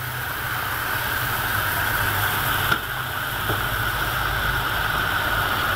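Ginger, garlic and onion paste frying in oil in a steel pot, a steady sizzle over a steady low hum, with a single click about three seconds in.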